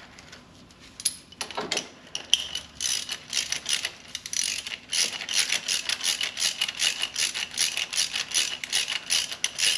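Ratchet wrench clicking in a fast, steady run as it turns a Time-Sert thread tap down into a head bolt hole in an engine block. The tap is running freely down threads already cut, not yet cutting new ones. The clicking starts about a second in.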